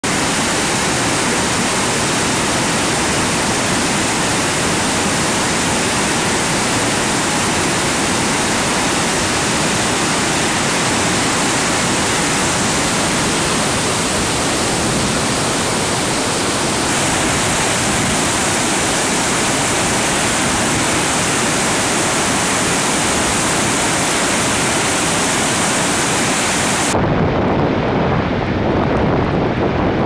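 Rushing water from river rapids and waterfalls: a steady, loud, even roar of white water. About 27 s in, the sound turns deeper and duller as the high hiss drops away.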